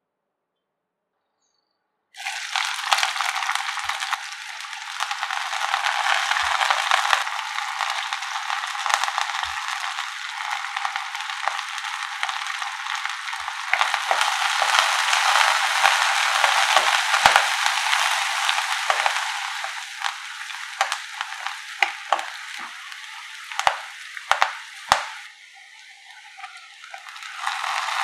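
Onions, dry red chillies, curry leaves and crushed garlic sizzling in hot gingelly (sesame) oil in a wok, starting suddenly about two seconds in, with scattered clicks and taps of a spatula stirring them. The sizzle dies down near the end, then picks up again.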